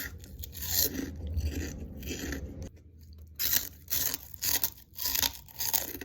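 A person chewing crunchy food with the mouth close to the microphone: a run of crisp crunches, roughly two a second, with a brief pause a little before the middle.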